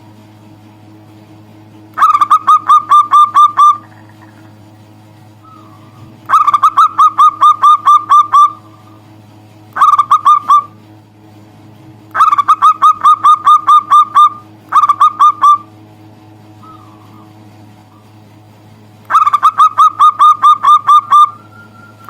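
Zebra dove (perkutut) calling in repeated bursts of rapid, clipped notes, about six a second, each burst lasting one to two seconds, six bursts in all. A faint steady low hum runs beneath.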